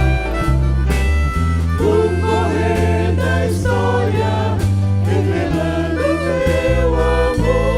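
Gospel worship song: voices singing a melody with vibrato over a band with a strong bass line and drum beats.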